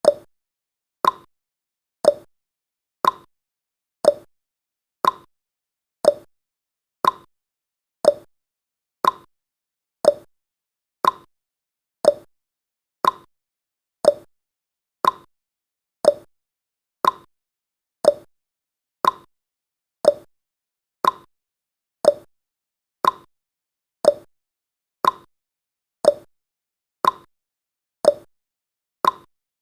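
Clock-style tick-tock sound effect, one sharp tick every second, alternating slightly higher and lower in pitch from tick to tick, marking off the seconds of a countdown timer.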